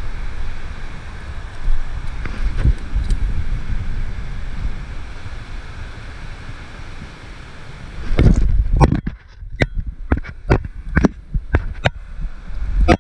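Wind rushing over an action camera's microphone as a bungee jumper swings on the cord. About eight seconds in, the wind noise drops and a run of sharp knocks and clicks follows, the camera being bumped and handled.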